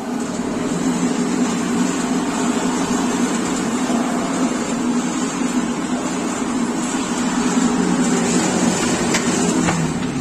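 Electric motor of a push-button science exhibit switched on and running steadily with a low hum and a hiss, cutting off just before the end.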